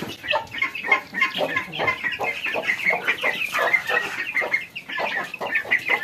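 Chickens clucking, many short calls repeated quickly without a break.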